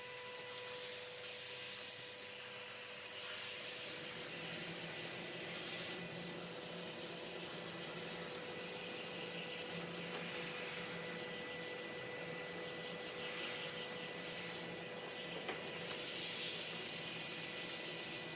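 Air spray gun hissing steadily as it sprays paint, with a faint steady tone underneath.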